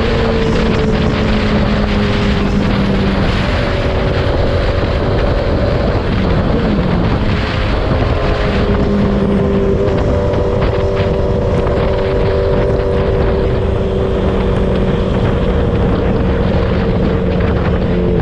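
Honda CB650R's inline-four engine through a straight-through full exhaust with the dB killer removed, running loud at a fairly steady cruising speed, its note dipping briefly about six seconds in. Wind buffets the microphone.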